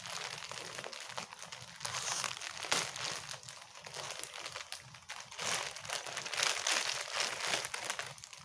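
Packaging crinkling and rustling irregularly as a building-block set is being opened by hand.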